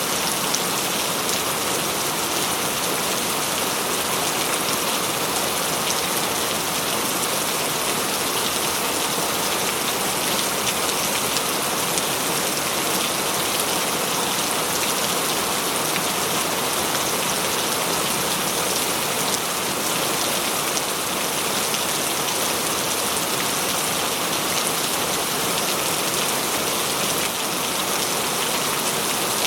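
Heavy rain pouring steadily, a dense, even hiss of many drops striking a surface.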